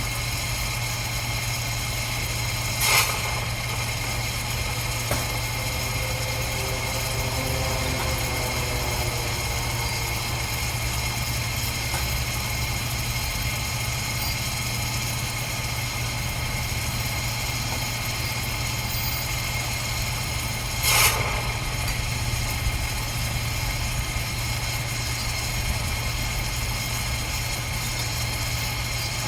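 Steady machinery hum with a strong low drone and a constant high whine, broken by two sharp knocks about 18 seconds apart.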